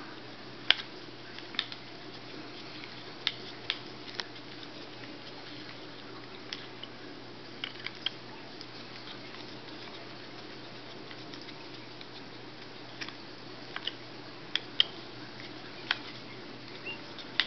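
A hex screwdriver driving Allen screws into the plastic motor housing of a Vortech MP10 aquarium pump: small sharp clicks, scattered and irregular, over a faint steady background.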